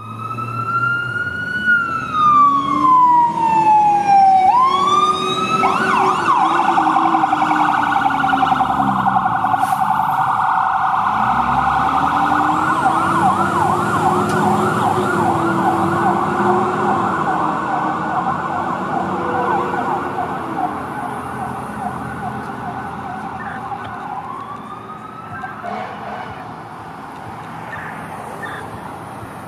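Fire engine's Whelen electronic siren on a priority response: a wail falling slowly, a few quick rising sweeps, then a fast yelp/phaser warble for about fifteen seconds that fades as the truck drives away, with a short wail again near the end. A lower tone rises and falls slowly beneath it twice.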